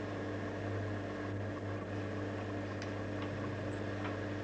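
Steady low electrical hum with hiss, with a few faint light ticks in the second half.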